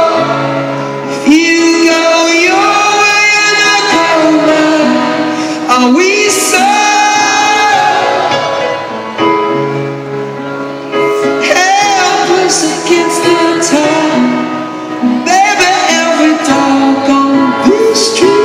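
Live rock-concert music: a slow song sung over grand piano, with sustained piano notes under a bending vocal melody, heard in a large hall.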